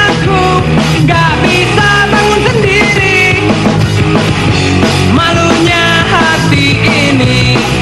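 Loud rock song playing, an instrumental passage of the band with no singing and a melody line that slides between notes.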